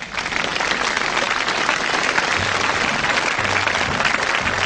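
Applause from a crowd, a dense steady clapping. Low notes of music come in under it about halfway through.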